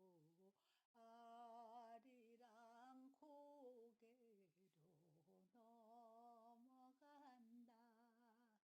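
Near silence, with a very faint voice humming a slow, wavering melody in the background.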